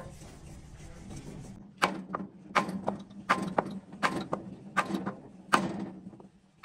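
A run of sharp knocks, roughly two a second, beginning a little under two seconds in, over a steady low hum.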